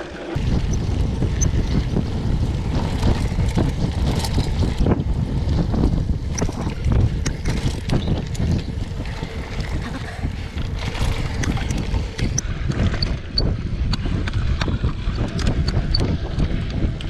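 Wind buffeting the rider's camera microphone and tyre rumble as a mountain bike runs fast over a dirt forest trail, with short knocks and rattles from the bike over bumps. The rumble comes up suddenly about half a second in and stays loud.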